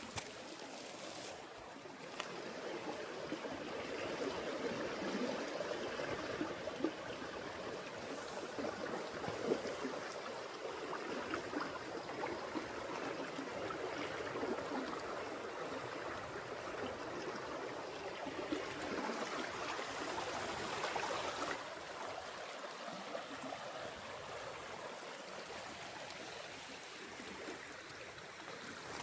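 A small creek running and trickling over rocks, a steady rush of water.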